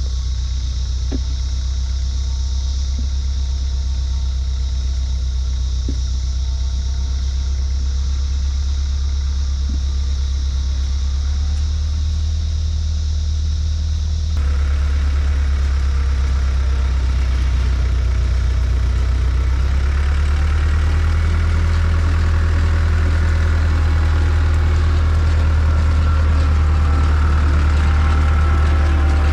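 Engine of farm machinery running steadily with a deep, even hum. About halfway through the sound changes abruptly, becoming fuller and slightly louder.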